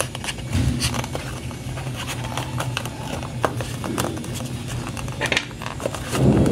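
Fingers handling and prying open a small cardboard box: a string of light scratches, clicks and scrapes on the card, with a louder rustle near the end, over a steady low hum.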